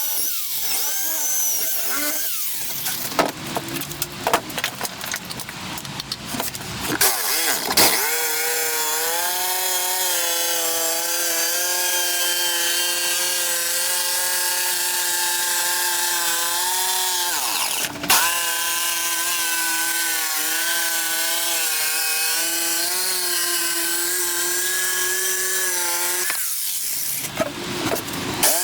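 Electric power tool cutting wood, its motor whining at a steady pitch. It starts and stops a few times over the first several seconds, then runs continuously, slowing and picking up again briefly about two-thirds of the way through.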